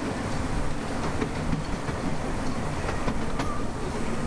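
Open passenger carriage of a miniature park railway rolling along the track: a steady low rumble with irregular clicks of the wheels over the rail joints.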